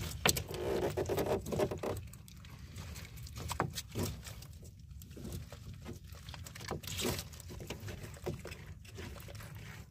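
A freshwater stingray flapping the edges of its disc against the floor of a boat: a run of wet slaps and patters, busiest and loudest in the first two seconds, then scattered.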